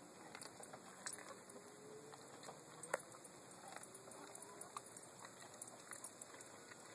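Dog chewing on a rabbit head: faint, irregular clicks and cracks of teeth on bone, with one sharper crack about three seconds in.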